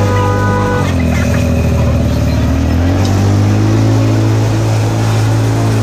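Engine of a small motorized tourist tram built like a toy locomotive, running close by. Its pitch drops about a second in, then rises a little before three seconds in as it moves off and keeps going.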